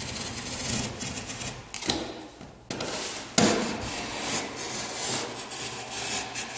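Utility knife blade slicing through the cardboard of the vent's box, a scratchy scraping in long strokes broken by a few brief pauses as the template is cut out.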